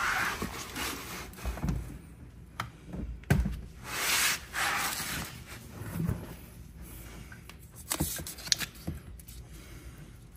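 Handling noise as a solar input cable and its connector are worked into place by hand: two spells of rustling, one near the start and one about four seconds in, and a few light knocks and clunks.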